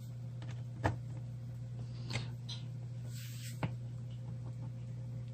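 A few sharp small clicks and taps of a screwdriver and fingers on a laptop's plastic screen bezel while its screws are retightened, three clicks about a second and a half apart over a steady low hum.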